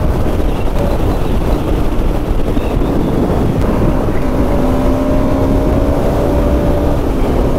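Motorcycle riding at highway speed: heavy wind rush on the microphone over the engine's steady drone. A steady engine tone comes through more clearly about four seconds in.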